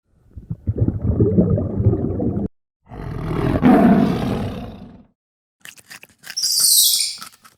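A big cat roaring twice, each roar about two seconds long. Near the end it switches to quick clicks and a high-pitched squeal.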